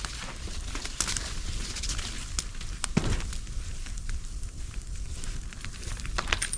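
Bonfire of old roofing felt, plastic sheeting and household items crackling and popping, with a steady low rumble of flames and a heavier thump about three seconds in.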